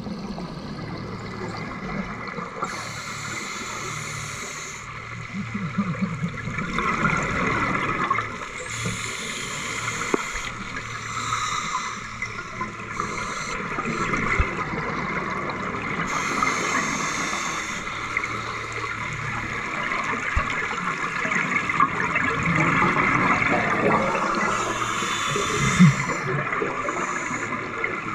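Scuba regulator breathing underwater: exhaled bubbles gurgling out in bursts about every seven seconds, four times, over a steady crackling hiss of the water.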